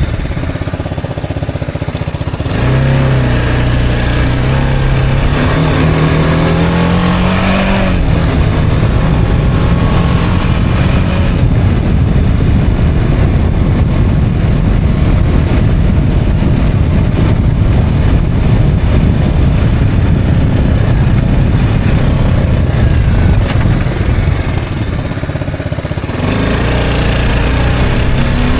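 Motorcycle engine pulling away from a stop, its pitch climbing in steps through the gears, then a steady run at road speed with heavy wind noise. Near the end it eases off briefly, then accelerates again.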